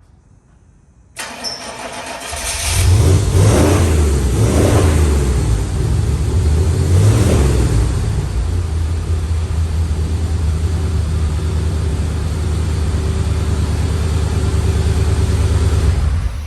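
1994 Chevrolet W4 truck's small-block V8 starting: a brief crank, then the engine catches and is revved a couple of times before settling into a steady idle, which cuts off sharply near the end. It starts now that the loose battery cable at the starter has been tightened.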